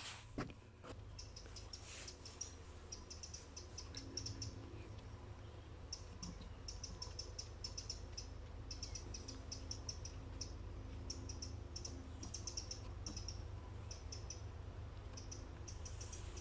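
Repeated bursts of rapid, high-pitched ticking calls from a small animal in the marsh, each burst under a second long, over a low, steady rumble.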